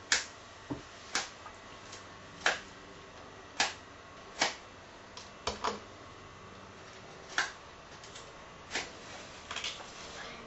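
Matches being struck against a matchbox strip over and over: about ten short scratchy strikes, roughly a second apart. The janky matches mostly fail to light, until one flares near the end.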